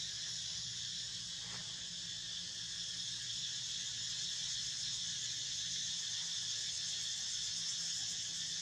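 Steady, high-pitched chorus of insects, unbroken throughout, with a faint low hum beneath and one faint click about a second and a half in.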